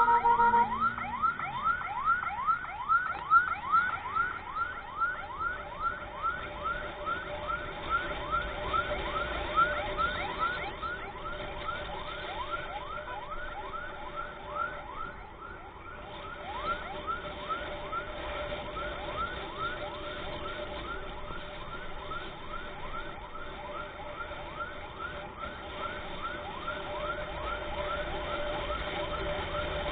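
Emergency-vehicle electronic siren in a rapid yelp pattern, short falling sweeps repeating two to three times a second over a steady tone, growing somewhat fainter about halfway through.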